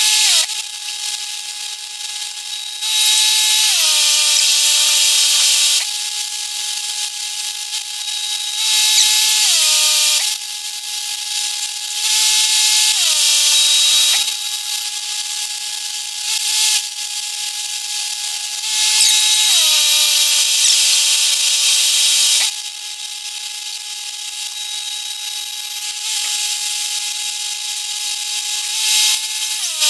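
Stick welding powered by an engine-driven welder: the arc crackles in several bursts of a few seconds each, and each time it strikes, the welder's engine note drops under the load, rising again when the arc breaks.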